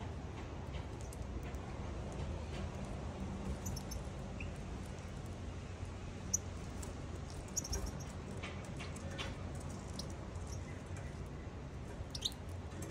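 Caged European goldfinches and Eurasian siskins giving scattered faint, short high chirps and ticks, a few in quick clusters, over a steady low rumble.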